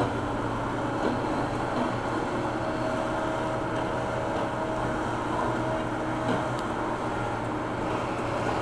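John Deere backhoe loader's diesel engine running steadily as the backhoe arm digs, with a higher steady whine over it through the middle and a light knock about six seconds in.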